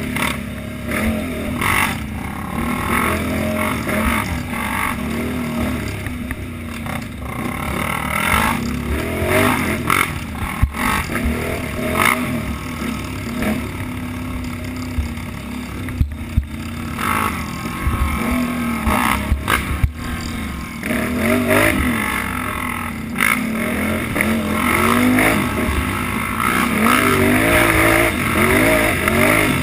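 Can-Am Outlander utility ATV's engine revving up and down as it is ridden hard along a rough dirt trail. Sharp knocks and clatter from the machine come over bumps now and then.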